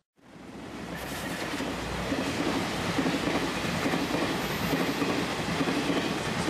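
An express train passing over the level crossing, its wheels clacking rhythmically over the rail joints. The sound starts abruptly and swells over the first two seconds, then holds steady.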